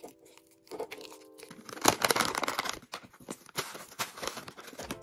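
Plastic oat bag crinkling as it is handled, loudest for about a second around two seconds in, followed by scattered light clicks and rustles. Soft background music plays in the first second or so.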